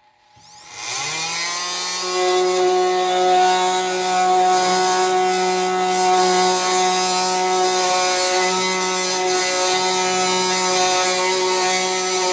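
Kobalt oscillating multi-tool on its lowest speed setting, spinning up over the first second or two, then buzzing steadily as its wood/metal blade plunge-cuts into a wooden board.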